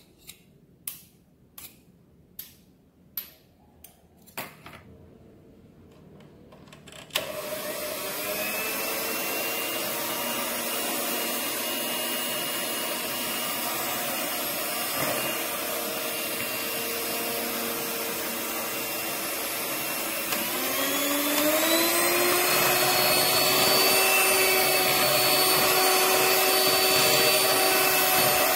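A few sharp taps of a metal spoon against a glass bowl, then an electric hand mixer switches on and runs steadily, beating eggs, flour and emulsifier into a batter. About two-thirds of the way through it steps up to a higher speed, its whine rising in pitch and getting louder.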